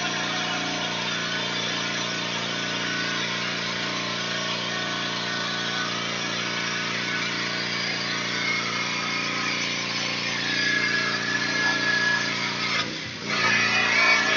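Pressure washer running steadily: the constant drone of its engine under the hiss of the water spray. It dips briefly near the end, then comes back louder.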